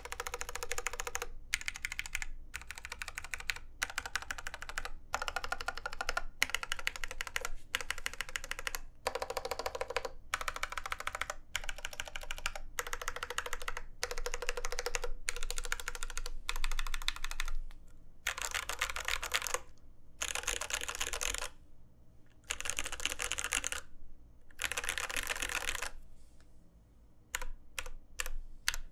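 Typing on a TGR x RAMA Exent mechanical keyboard with lubed c3 Kiwi tactile switches, a brass plate and GMK keycaps. A steady, fast stream of keystrokes breaks after about eighteen seconds into separate short runs, then thins to a few scattered presses near the end.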